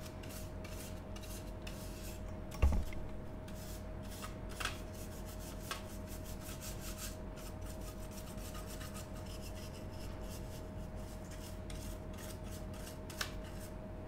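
Small hair-dye brush rubbing over a router's circuit board and plastic case to dust it, in many quick, light scratchy strokes. A thump comes about two and a half seconds in, and a few small clicks follow later.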